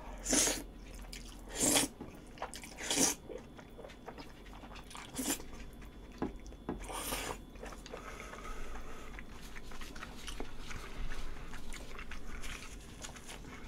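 Jajangmyeon (black-bean noodles) eaten close to the microphone: about five short, sharp slurps in the first seven seconds, then softer chewing.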